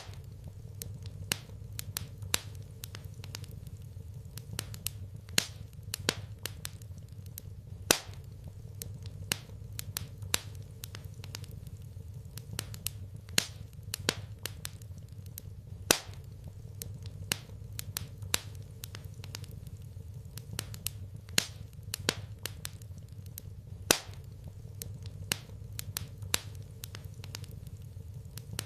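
Wood fire crackling in a fireplace: irregular sharp pops and snaps, several a second, over a steady low hum.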